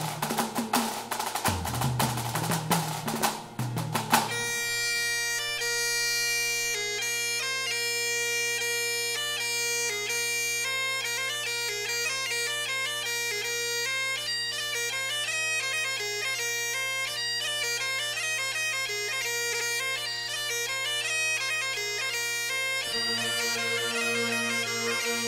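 Music: bagpipes playing a tune over a steady drone, with drums beating for the first four seconds or so and the pipes continuing alone after that.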